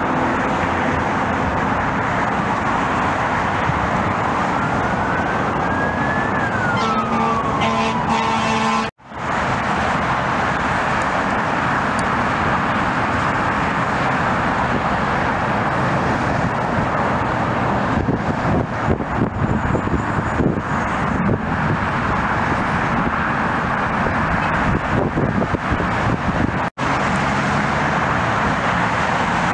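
Steady roar of airliner jet engines on takeoff, mixed with traffic rumble. A siren rises and falls once between about 3 and 9 seconds in, and the sound drops out briefly twice, at about 9 seconds in and near the end.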